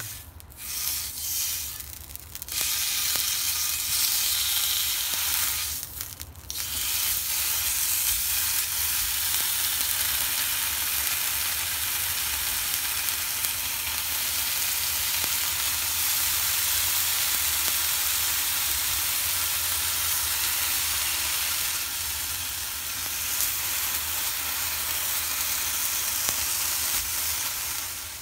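Raw bacon strips sizzling on a hot nonstick griddle pan as they are laid down one by one, a steady hiss with short breaks near the start and about six seconds in.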